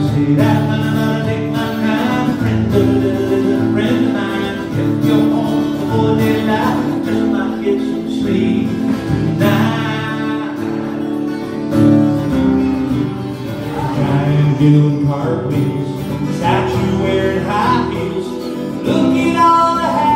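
Live solo acoustic guitar played with a singing voice: a cover song performed at the microphone.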